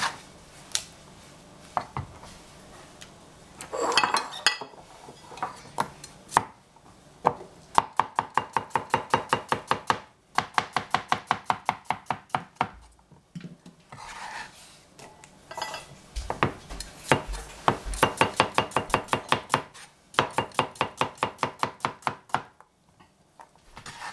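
Cucumbers being sliced into rounds with a cleaver on a plastic cutting board: quick runs of evenly spaced knife strokes, about seven a second, stopping and starting several times. A scraping clatter about four seconds in.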